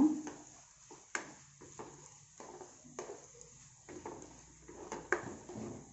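A plastic spoon stirring chopped onions in a non-stick pot, scraping softly with light, irregular knocks against the pan as the onions are sautéed in oil.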